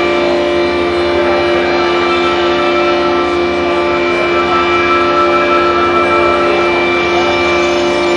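Experimental drone music: many sustained tones held steady in a dense layered drone, with hiss over it and no change in level.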